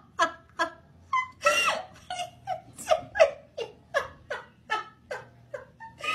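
A person laughing hard in quick, high-pitched bursts, about three a second, with a longer squeal about one and a half seconds in.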